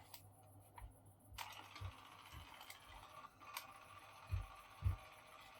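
A DYMO LabelManager 100 being handled and tried out: a few light clicks, then a faint steady hiss that starts suddenly about a second and a half in, and two soft thumps near the end, over a low steady hum.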